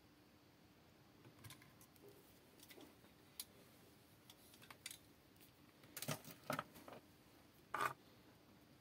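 Quiet handling on a workbench: scattered light clicks, then a few louder knocks about six and eight seconds in, as multimeter test probes are lifted off a circuit board and set down. A faint steady hum sits underneath.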